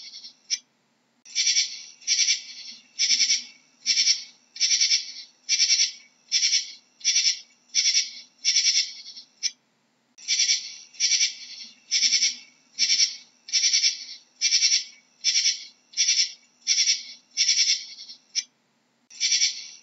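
Katydid stridulating: a regular series of high-pitched chirps, a little more than one a second and each under half a second long, broken by short pauses about a second in, near the middle and near the end.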